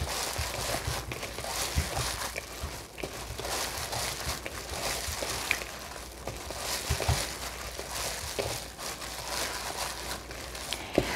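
Disposable plastic glove crinkling and a wet, minced Atka mackerel and tofu patty mixture squishing as it is kneaded by hand in a bowl, with irregular soft knocks against the bowl.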